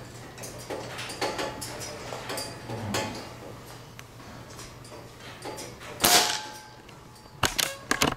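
Scattered light clicks and knocks, a louder sudden sound with a brief ring about six seconds in, and a quick run of sharp clicks near the end.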